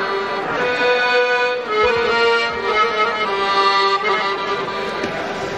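Instrumental music from a band, its melody a line of held notes moving from note to note.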